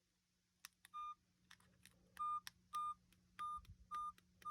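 Key beeps from a tiny earpiece-style mini phone as its buttons are pressed: six short beeps, all at the same pitch, each with a faint button click, at uneven intervals as the menus are stepped through.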